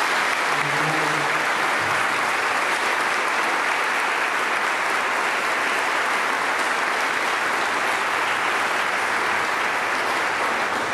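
A church congregation applauding: steady clapping of many hands that holds throughout and begins to taper off at the very end.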